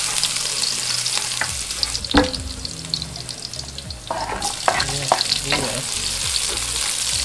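Chopped garlic sizzling in oil in a wok while a wooden spatula stirs and scrapes the pan, with a sharp knock about two seconds in. A little after four seconds chopped onion is tipped in and the sizzle grows louder.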